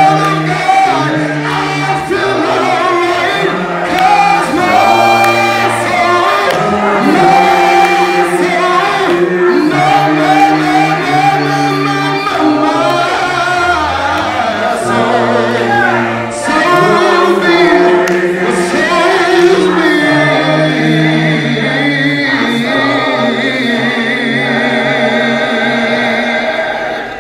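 Church gospel choir singing in parts with a male soloist on a microphone, the voices moving together in chords, then holding one long final chord with vibrato from about two-thirds of the way through until it fades at the very end.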